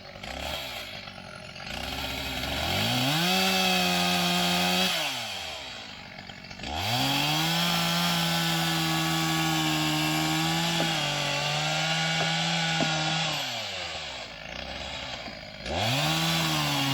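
Gas chainsaw revved to full throttle three times, bucking into a loaded log, the engine idling down between bursts. The longest burst runs several seconds with the pitch dropping slightly as the chain bites. The cut ends with the bar pinched in the wood.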